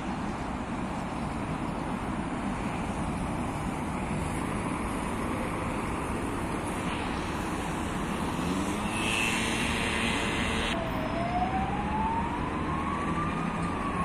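Steady street traffic noise, with a siren wailing in the distance: one slow rise in pitch starting about three-quarters of the way in, which turns and begins to fall near the end.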